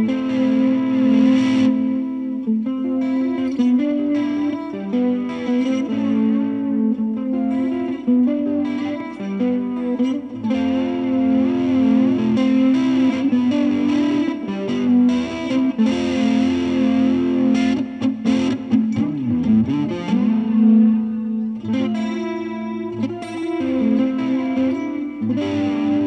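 Electric guitar picked lightly through a slightly overdriven amp, with reverb, tape echo and flanger on it. The result is a sparkly, almost breakup-y, washy and wet ambient clean tone, the guitar's volume rolled back so it cleans up. Notes and chords ring on and overlap in the echo and reverb.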